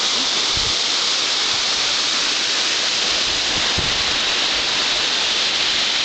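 Waterfall cascading over rocks into a pool, a steady, even rush of falling water.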